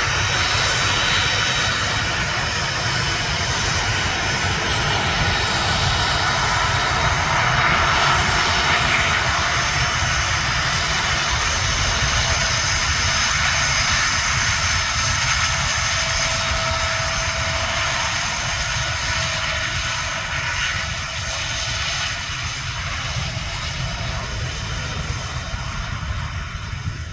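The three Honeywell TFE731-5BR turbofans of a Dassault Falcon 900B whining at taxi power as the jet rolls by. The whine has several steady high tones. It is loudest about a third of the way in and fades gradually as the jet turns away.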